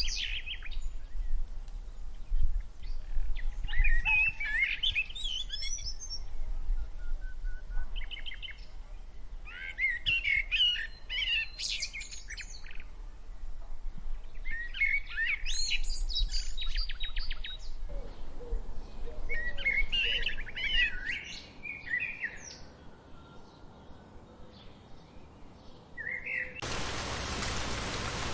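Songbirds singing in short bursts of chirps and trills, a phrase every few seconds, over a low background rumble. Near the end the birdsong gives way abruptly to the steady hiss of falling rain.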